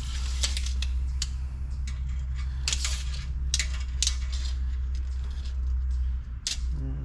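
Metal tape measure clicking and rattling as it is handled and its blade is run out along the truck, a series of sharp light clicks over a steady low hum.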